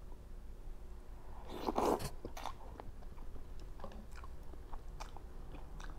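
Close-up eating sounds of ramen noodles: a loud slurp about a second and a half in, then chewing with short wet clicks and smacks.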